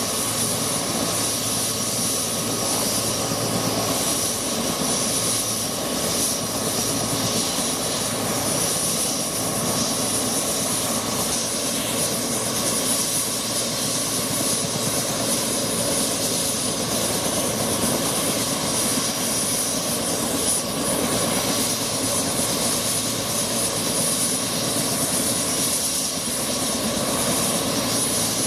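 Turbine helicopter running on the ground: steady engine and rotor noise with a thin, high-pitched turbine whine held throughout.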